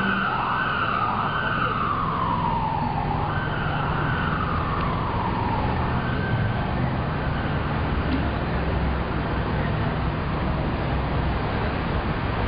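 Emergency vehicle siren wailing, its pitch rising quickly and falling slowly several times before it fades out about six seconds in, over steady street traffic rumble.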